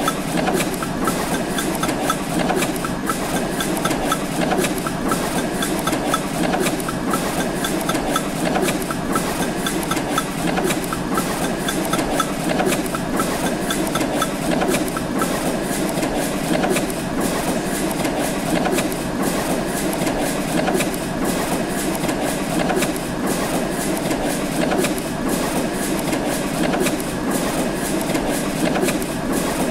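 Workshop machinery running with a steady, dense clatter of rapid clicks; a faint high tone pulses about three times a second through the first half.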